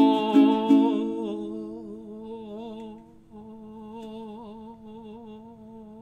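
A man's voice singing one long held note that wavers in pitch and slowly fades. A few ukulele strums under it stop about a second in.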